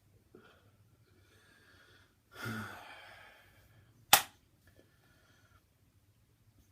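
A short, breathy belch with a low-pitched start, trailing off into an exhale, followed about a second and a half later by a single sharp click, the loudest sound.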